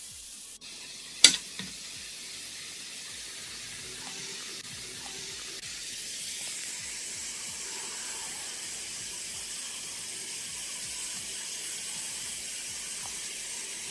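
Beef steaks searing dry, with no oil or butter, in a ceramic grill pan: a steady sizzle that grows a little louder partway through. A single sharp click sounds about a second in.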